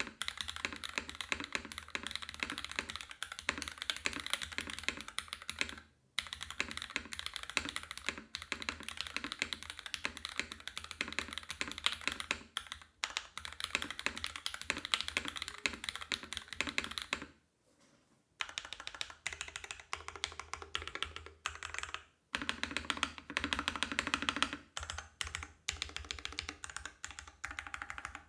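Top-mounted mechanical keyboard with lubed Cherry MX Black Ultraglide linear switches on a carbon-fibre plate, under GMK keycaps, typed on continuously in fast runs of keystrokes. The typing breaks off for a few short pauses, the longest about two-thirds of the way through.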